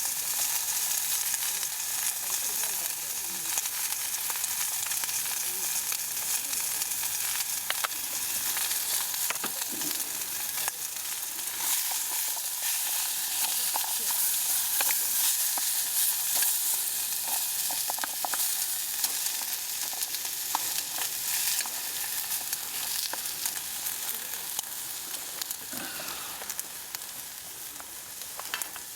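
Food sizzling in a frying pan: a steady hiss with scattered small crackles and clicks.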